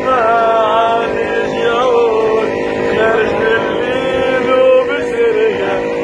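A group of men singing together, a lead voice holding long wavering notes.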